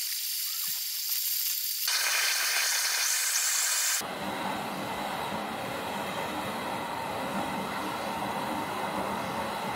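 Two gas brazing torches, one of them a handheld Shinfuji RZ-860, hissing steadily at full flame while heating a stainless shaft joint for silver brazing. About two seconds in the hiss grows louder, and at about four seconds it changes abruptly to a fuller, deeper rush that holds steady.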